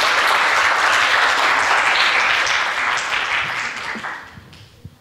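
Audience applauding, a dense steady clapping that dies away about four seconds in.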